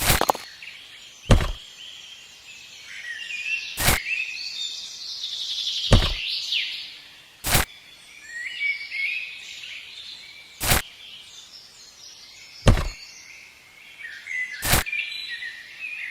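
Birds chirping and singing in the background, with a sharp single knock about every two seconds, seven in all.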